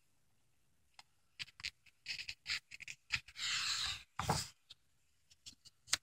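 Pages of a paperback picture book being turned by hand: faint paper clicks and crinkles, with a longer swish of the page sliding over about three and a half seconds in and a short rustle just after.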